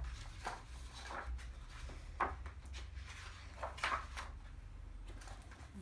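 Paper pages of a hardback picture book being turned and handled: several short rustles over a low steady hum.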